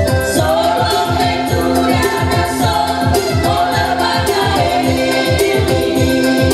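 Group of women singing a gospel-style song together into microphones through a PA, over an electronic arranger keyboard (a Technics KN7000) playing a backing with a steady bass-and-drum beat.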